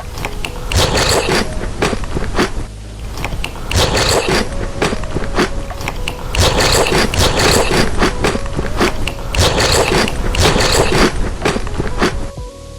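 Close-miked chewing of crunchy food: loud, dense crackling crunches that come in bursts of a second or two, with short pauses between bites.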